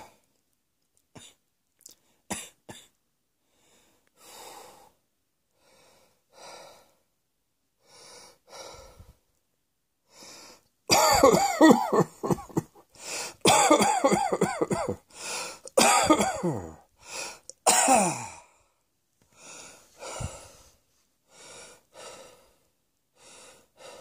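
A person coughing: quiet breaths every couple of seconds, then about halfway a hard fit of many coughs in quick succession lasting around seven seconds, some with a voice that falls in pitch, before settling back to quieter breathing and a few single coughs.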